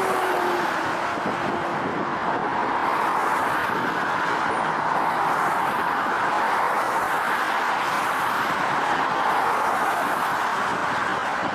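Jet aircraft engine noise: a steady rushing sound, with a faint tone gliding slightly down in the first second.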